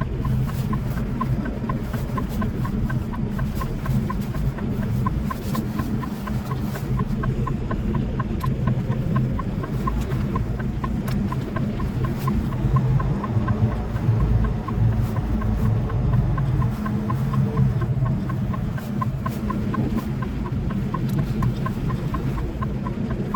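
Semi-truck engine droning steadily in the cab while driving, with a quick, even ticking over it.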